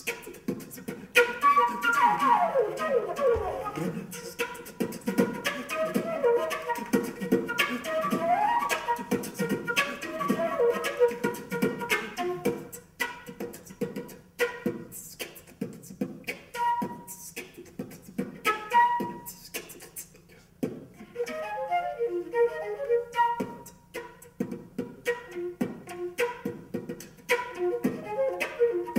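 Concert flute played beatbox-style: melodic lines mixed with sharp percussive hits made into the instrument in a steady rhythm. A quick falling run comes about two seconds in, with quicker, fluttering note patterns later on.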